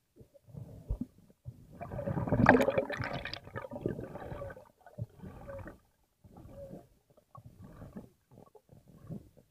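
Underwater gurgling and bubbling, heard through a diving camera. It is loudest in a long stretch about two to four seconds in, then comes in shorter broken bursts.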